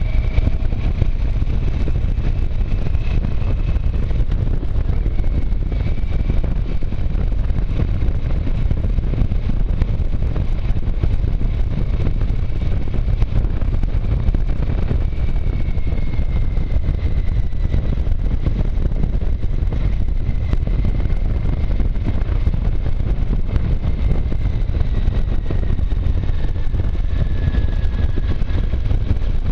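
Motorcycle on the move: wind rushing over the microphone with the engine running underneath, steady and loud, with a faint high whine that drifts slowly in pitch.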